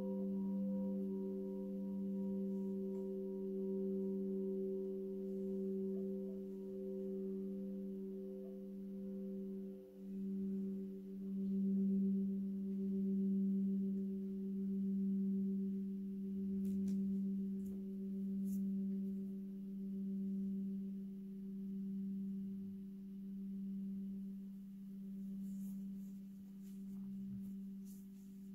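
Alchemical quartz crystal singing bowls ringing together in several sustained, pure tones, a low tone the strongest, with a slow, even wavering pulse in loudness. About ten seconds in the sound briefly dips and then swells again as the bowls are played on; the higher tones fade away.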